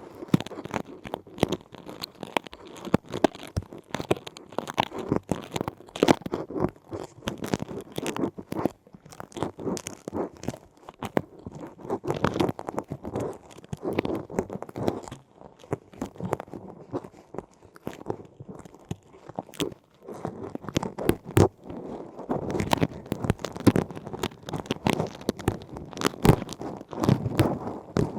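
Close-miked ear-cleaning ASMR sounds: a tool scratching and crunching in an ear canal, a dense, irregular stream of small crackling clicks and scrapes.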